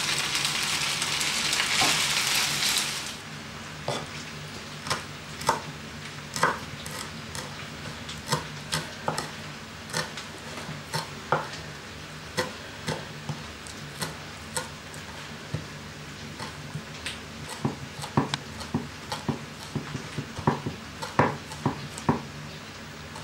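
Pasta and vegetables sizzling in a frying pan while being stirred, cutting off after about three seconds. Then a kitchen knife chopping parsley on a wooden cutting board: irregular sharp knocks, one or two a second, coming faster near the end.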